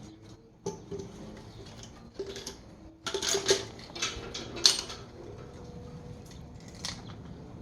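Loose metal valve-train parts from a diesel cylinder head clinking and clattering as they are handled, with a run of sharp knocks about three seconds in and one loud clank a little later.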